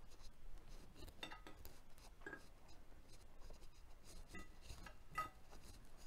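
Faint scraping and a few light clinks of cutlery against a ceramic plate as pieces of steak are moved about; some taps ring briefly, the loudest about five seconds in.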